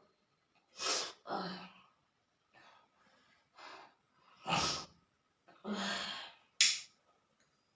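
A person's sharp breaths, sniffs and sneeze-like bursts from a nose being tickled with chili to bring on sneezing. About seven short, breathy bursts come one after another, the loudest a little past the middle, ending with a short sharp one.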